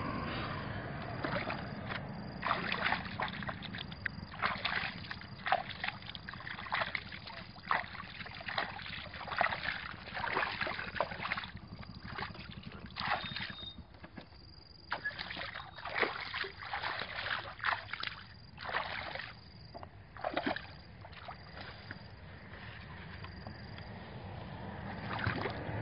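Shallow muddy water splashing and sloshing in short, irregular bursts as a person wades and gropes through it with both hands while hand-fishing with a bamboo plunge basket. A steady low rumble runs underneath.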